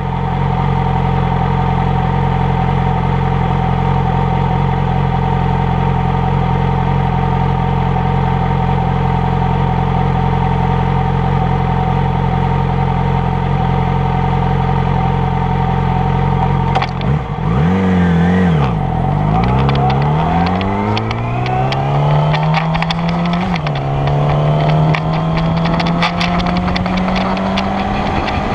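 Sport motorcycle engine idling steadily, heard close up from a mirror-mounted camera. A little past halfway the throttle is blipped, then the bike pulls away with the engine note rising, dropping at a gear change and climbing again.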